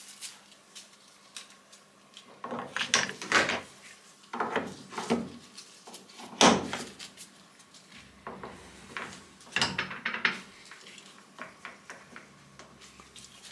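Scattered metallic clunks and clicks of lathe tool holders being handled and set on the toolpost, a few with a short ring, the loudest about six and a half seconds in.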